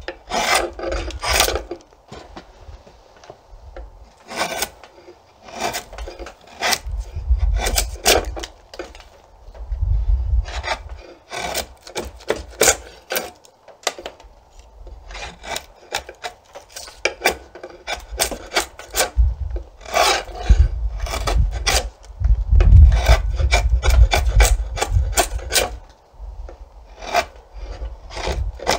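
Draw knife shaving an Osage orange bow stave in short scraping strokes that come in quick runs with brief pauses. Each stroke peels wood off the back of the stave down to a single growth ring.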